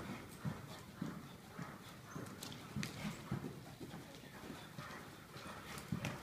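Hoofbeats of a horse trotting on sand arena footing: dull thuds about two a second, with a few light high clicks.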